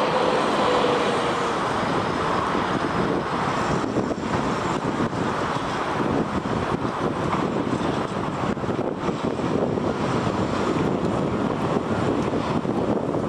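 Steady, even rushing noise of a Boeing 777-300ER's GE90 jet engines heard from afar as the airliner comes in on final approach and lands, with a faint engine tone drifting slightly lower near the start.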